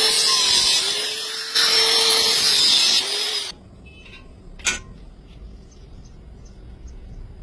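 A handheld power tool running loud with a high hiss, its motor pitch dipping and recovering as it bears on the work, then stopping about three and a half seconds in. A single sharp click follows about a second later.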